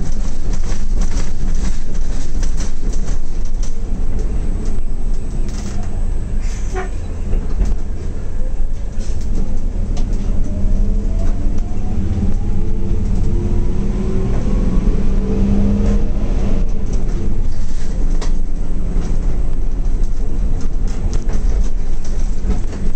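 Zhong Tong LCK6107H bus heard from the driver's cab while driving: a steady low engine drone and road rumble with rattles from the cabin. A whine rises in pitch for several seconds past the middle, then drops away.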